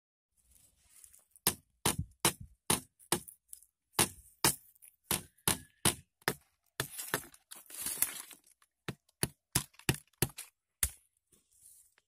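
Stone axe chopping into a green bamboo stem: about twenty sharp strikes at roughly two a second, with a stretch of crackling rustle around the middle.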